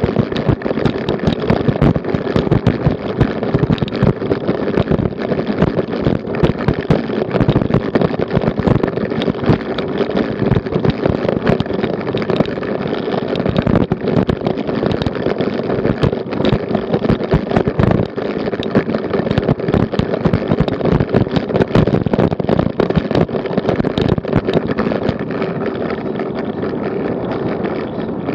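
A bicycle with a mounted action camera rattling hard over cobblestones: a dense, irregular clatter of knocks and jolts with wind on the microphone. The clatter eases near the end as the wheels reach smooth paving.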